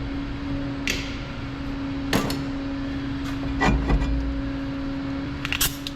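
Several sharp metallic clinks and knocks of brake parts and hardware being handled, over a steady low hum.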